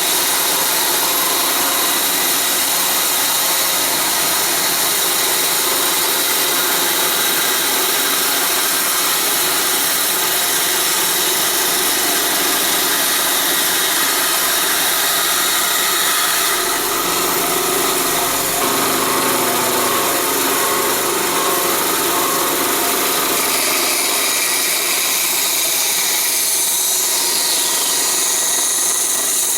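A power tool running continuously as it works wood, with a steady mechanical whine; the sound changes character about halfway through.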